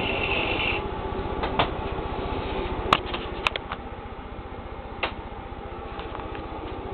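Model railway locomotive running with a steady motor hum, hauling wagons over the track, with a few sharp clicks from wheels or couplings. The loudest clicks come about three seconds in.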